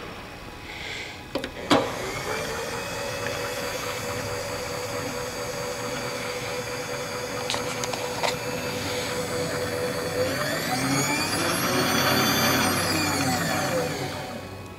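Power table feed motor of a Vectrax GS-20V vertical mill: a couple of sharp clicks as it is engaged, then a steady whine as it drives the table. About ten seconds in, the whine rises in pitch and falls again before it stops.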